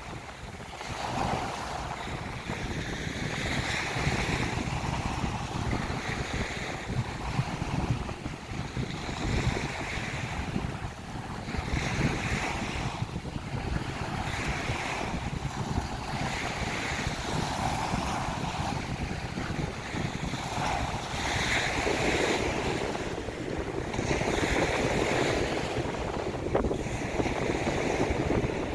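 Small ocean waves breaking and washing up a beach, swelling in a rough rhythm about every two seconds, over a steady low rumble of wind on the microphone.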